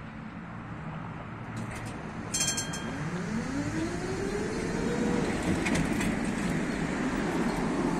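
Tatra T6A5 tram pulling away from a stop and passing close by. A brief high tone sounds about two seconds in. Then the traction equipment whines, rising in pitch as the tram picks up speed, over growing wheel and running noise that gets louder toward the end.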